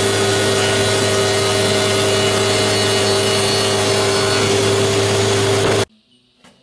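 Spindle sander running with its sanding drum against the curved edge of particleboard: a steady motor hum under a rough sanding noise. It cuts off suddenly near the end.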